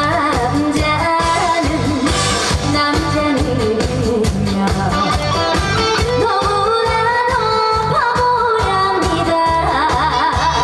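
Trot song performed on stage: a woman singing over a band backing track with a steady beat and guitar.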